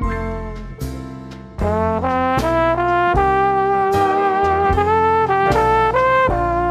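Outro music: a brass-led tune of held horn notes over a steady drum beat.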